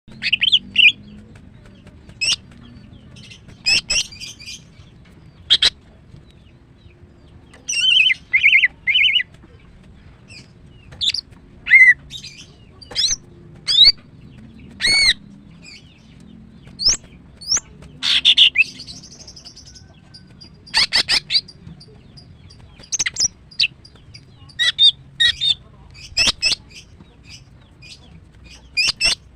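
Female green leafbird (cucak ijo) calling to draw a male: short, sharp chirps and quick rising whistles, some trilled, coming irregularly a second or two apart. A faint low hum runs underneath.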